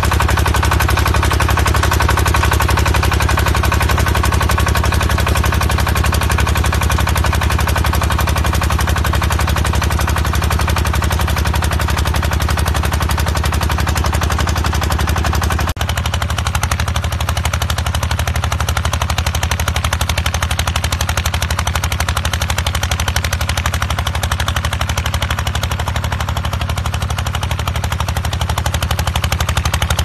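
Single-cylinder engine of a walk-behind rotary tiller running steadily under load as its tines churn the soil, a loud, rapid, even chatter of exhaust beats. A little over halfway it breaks off abruptly and picks up again at once, a little thinner in the low end.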